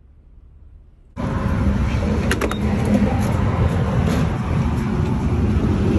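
Near-quiet van cabin for about a second, then loud steady rumbling noise at a gas-station fuel pump, with a thin high whine on top and a few light clicks as the fuel nozzle is handled.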